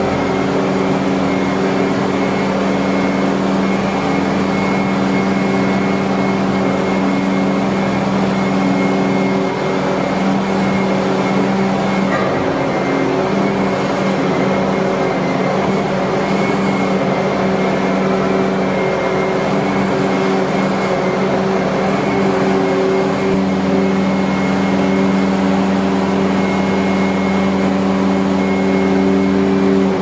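Bobcat S650 skid-steer loader's diesel engine running steadily with a constant pitch as the machine drives carrying a bin.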